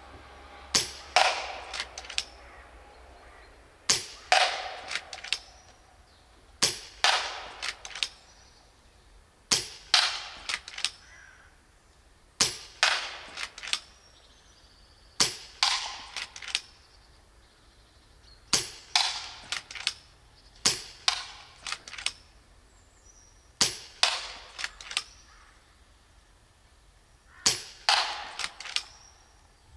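FX Dreamline .30 calibre PCP air rifle, the low-power 5.5 foot-pound version, fired about ten times at a steady pace of one shot every two to four seconds. Each sharp report is followed within a second by a couple of fainter clicks.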